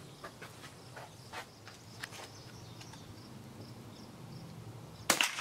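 Faint high insect chirping in short repeated pulses and a few small clicks, then about five seconds in a single sharp, loud rifle shot from an M1903A4 Springfield in .30-06.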